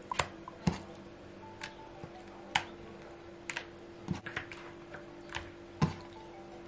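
Scattered light taps and clicks, about a dozen at uneven intervals, as raw chicken pieces are handled on a plastic-covered table and put into a plastic bowl of marinade. A steady low hum runs underneath.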